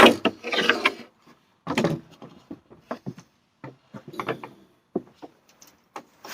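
A rifle, likely the SKS, being handled: an irregular string of metallic clicks and clacks, the loudest right at the start.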